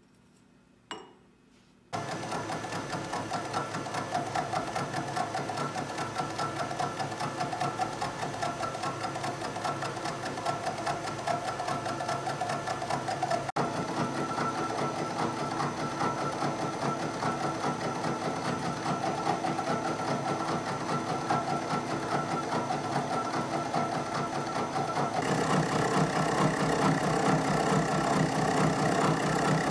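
Sheldon Vernon horizontal milling machine running, its arbor-mounted milling cutter taking a light cut across a T-nut blank in the vise, a steady fast chattering rhythm that starts abruptly about two seconds in and gets louder near the end. The cutter is dull and struggles even at this light depth of cut.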